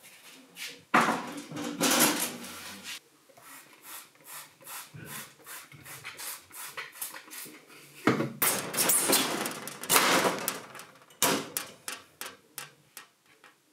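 Hand trigger spray bottle misting water over seed-starting pots: quick squeezes, each a short hiss of spray, in two longer runs, about a second in and again around eight to ten seconds in, with lighter squeezes between.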